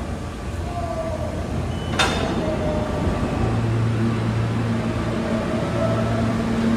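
An automatic subway fare gate gives a single sharp clunk about two seconds in as it unlatches and swings open. Under it is steady station rumble with faint whining tones, and a steady low hum sets in shortly after.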